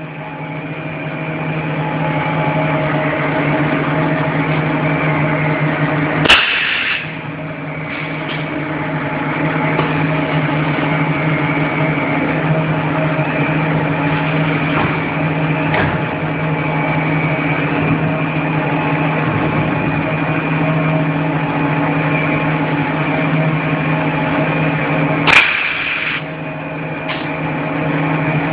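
Clay-brick extrusion and cutting line running with a steady machine hum. Twice, about six seconds in and again near the end, there is a sharp clack followed by a brief hiss.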